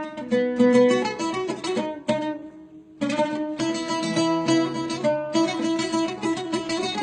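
Instrumental break of music on a plucked string instrument: a run of picked notes that dies away about two seconds in, then the playing starts up again about a second later.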